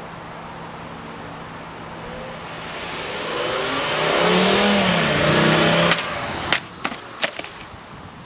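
Car engine and road noise building as the car accelerates, breaking off abruptly about six seconds in. A few sharp knocks follow as the boxed power supply hits the asphalt and tumbles.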